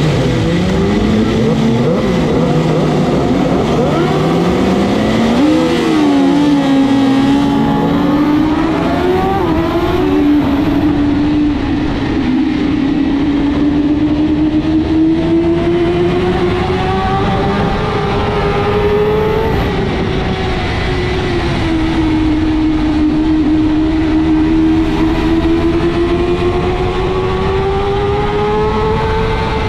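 BMW S1000RR superbike's inline-four engine at racing speed, pulling hard through the gears. In the first several seconds the pitch climbs and drops in quick steps as it upshifts, then comes a long slow climb, a drop about two-thirds of the way through as it backs off, and another climb.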